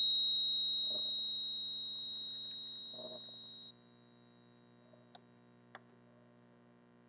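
A meditation bell's single high, pure tone ringing out and fading evenly, cut off suddenly about three and a half seconds in; then near silence with two faint clicks.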